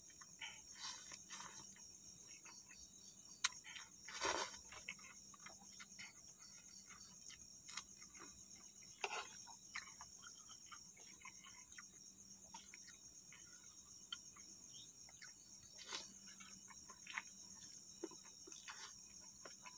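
A person eating instant noodles: scattered short slurps and mouth clicks, the strongest about four seconds in. Behind them runs a steady high-pitched chirring of night insects.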